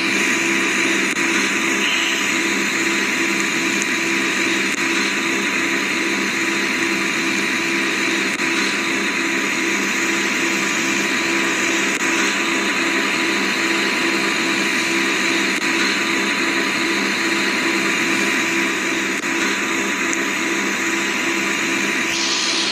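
Noisy air conditioner running: a steady, loud rush of fan air over a fast-pulsing low hum and a thin steady whine.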